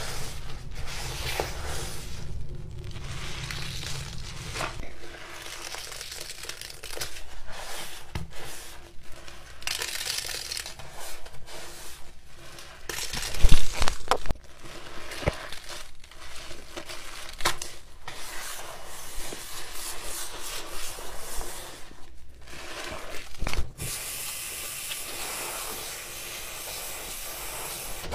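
Foamy sponge scrubbing and squishing in a soapy sink, with irregular wet rubbing and squelching and a loud wet splat about halfway. For the last few seconds a tap runs steadily into the basin.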